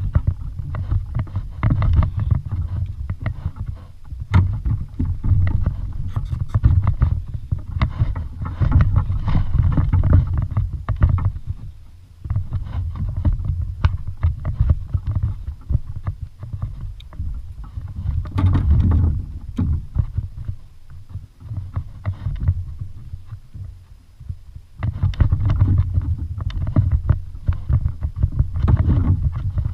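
Kayak on the water: an uneven low rumble of water against the hull, coming and going in surges, with quieter lulls now and then.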